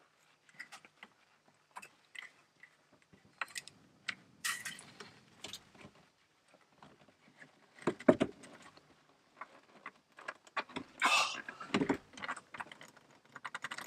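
Gloved hands handling and twisting a plastic sewer-hose bayonet fitting on an RV waste drain outlet: scattered clicks, rubs and knocks, with a louder knock about eight seconds in and a denser scraping clatter around eleven to twelve seconds.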